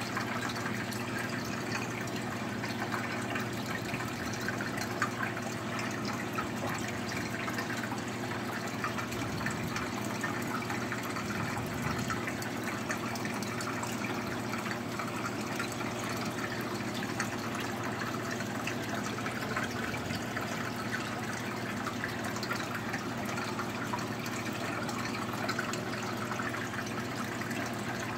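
Aquarium filter and pump running: steady trickling and splashing of circulating water over a low, even hum.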